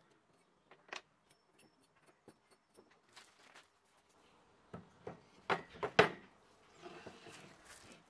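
Small metal clicks and ticks of a hex key working the set screws on a pulley hub on a washing machine motor shaft, then several sharp knocks of objects set down on a wooden tabletop, the loudest about six seconds in, and a soft rustle near the end.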